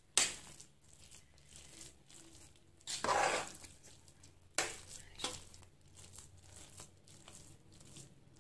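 A metal utensil stirring and mashing soft cooked rice and lentils in an aluminium pressure cooker: wet squelching and scraping, with a few sharp knocks of the utensil against the pot. The loudest part is a longer scrape about three seconds in.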